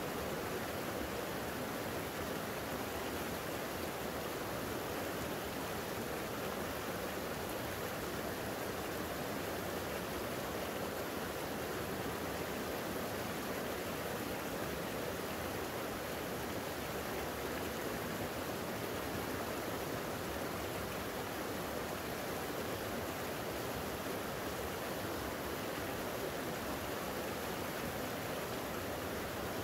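Creek water running steadily, an even, unbroken sound of flowing water.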